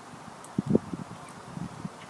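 A few muffled low knocks and rustles: handling of a pistol crossbow as it is readied and aimed for a shot.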